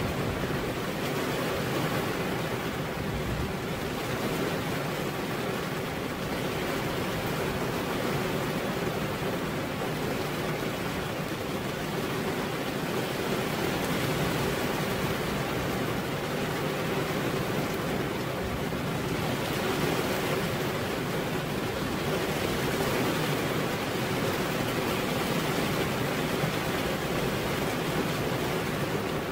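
Heavy rain pouring steadily onto a veranda roof.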